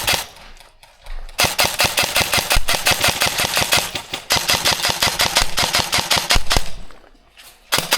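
Airsoft rifle firing full-auto in one long burst of about five seconds, a fast, even clatter of shots, with the end of another burst just at the start.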